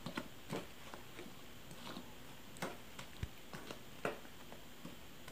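Silicone spatula stirring dry flour in a stainless steel bowl: faint, irregular taps and short scrapes against the metal.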